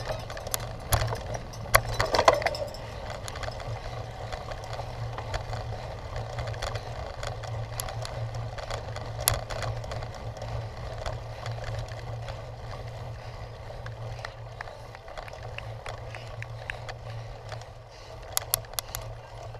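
Cyclocross bike being ridden over a rough course, the frame and chain rattling with scattered sharp knocks over a steady low rumble of wind and tyre noise. The knocks come thickest about two seconds in and again near the end.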